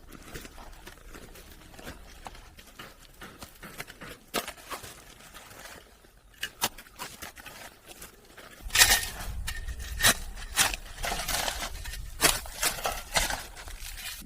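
Irregular knocks, taps and scrapes, which grow louder and more frequent from about nine seconds in, with a low rumble underneath.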